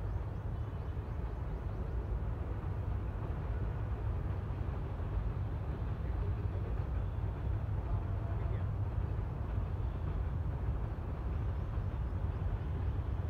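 Steady low rumble with a faint hiss above it, unbroken throughout.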